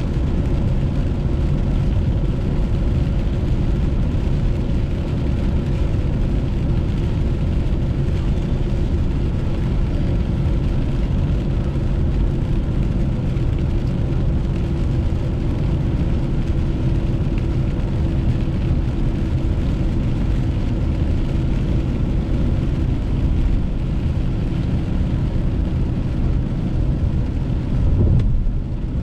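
Steady road and engine noise heard from inside a moving car's cabin on a wet road: a continuous low rumble with a faint steady hum, and a brief swell near the end.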